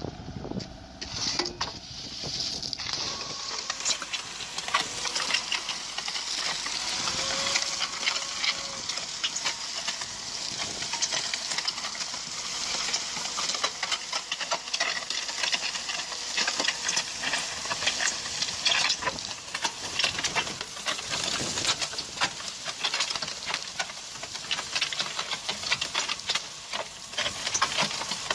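Machinery clattering rapidly and without pause, with a steady hiss.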